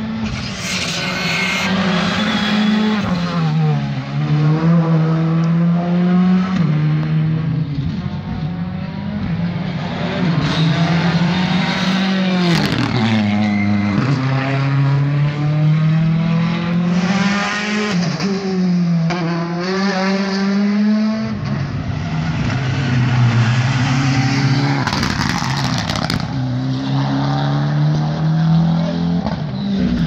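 Rally car engines revving hard through the gears, the pitch climbing and then dropping at each gear change, over and over.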